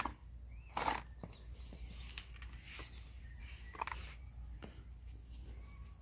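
Quiet outdoor background with a steady low hum, two short scuffing noises (about a second in and near four seconds in) and a few faint bird chirps.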